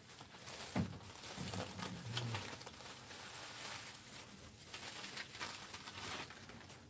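Dried laver sheets (gim) rustling and crackling as an extra sheet is peeled off a bamboo rolling mat, with a few faint ticks of handling.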